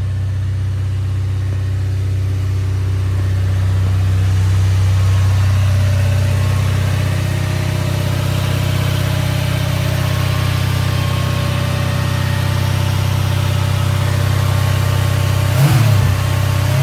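Mercedes-Benz 560SEC's V8 engine running with a steady note, with a short change in pitch near the end.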